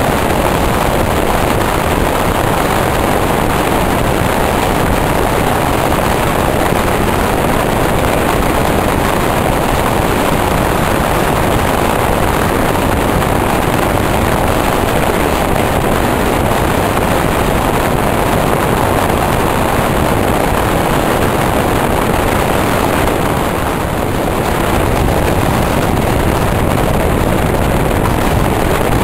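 Steady rushing noise of a passenger train running at speed, heard from on board by the side window: wheels on the track and air streaming past, dipping slightly for a moment about three-quarters of the way through.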